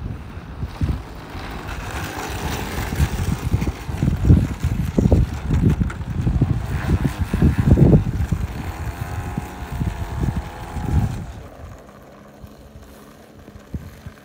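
Wind buffeting the microphone in gusts, over the faint steady hum of the RC plane's O.S. nitro glow engine idling as it taxis. The gusts die down near the end.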